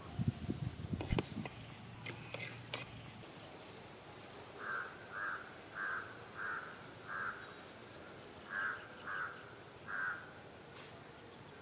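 A crow cawing eight times in two runs, short harsh calls about half a second apart. Before them, in the first second or two, come a few sharp knocks and handling sounds.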